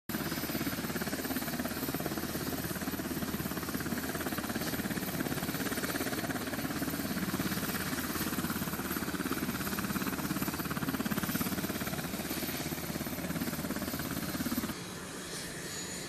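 MH-60 Seahawk helicopter running on deck: turbine engines and rotor with a rapid, even pulsing. About a second before the end the sound drops abruptly to a quieter level.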